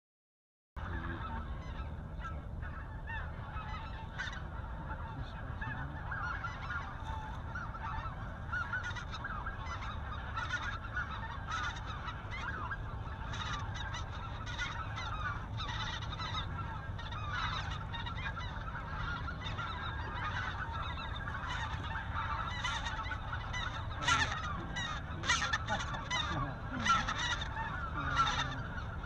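A dense, continuous chorus of many geese honking and calling, starting abruptly just under a second in. Toward the end, several louder, sharper calls stand out above the chorus.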